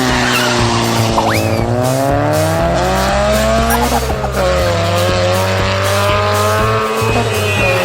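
A car engine revving, its pitch slowly falling and rising, with a quick upward squeal about a second in, over background music.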